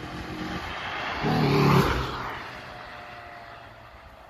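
Opel Tigra 1.4 16V, with its naturally aspirated four-cylinder engine, driving past: engine note and tyre noise build as it approaches, are loudest about a second and a half in, then drop in pitch and fade as the car moves away.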